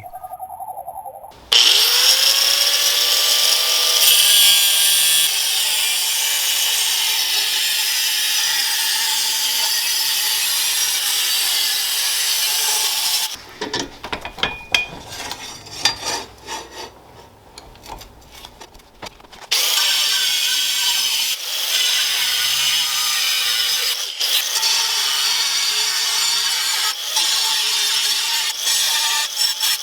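Power tool cutting through a steel saw blade, spinning up about a second and a half in and then running steadily under load. It stops for about six seconds in the middle, with a few scattered clicks and knocks, then starts cutting again.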